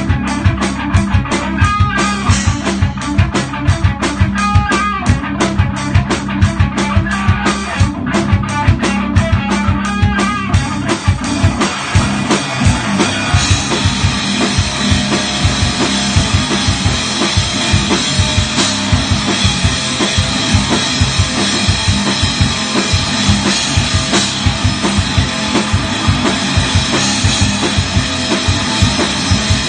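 Progressive metal band playing: a fast, driving drum kit with bass drum under guitar. About thirteen seconds in, the sound thickens into a dense, steady wash.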